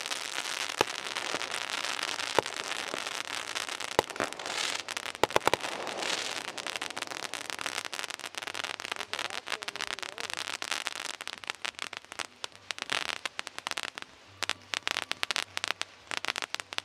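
Crackling fireworks: a dense, continuous crackle with a few louder pops among it. After about ten seconds it thins out into scattered sharp cracks that come in little clusters and die away.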